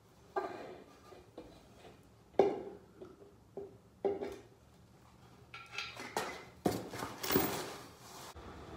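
Metal knocks and clinks as a T56 bell housing is set onto the Collins adapter plate on a CD009 transmission: single knocks spaced about a second apart, the loudest about two and a half seconds in, then a busier run of clatter near the end.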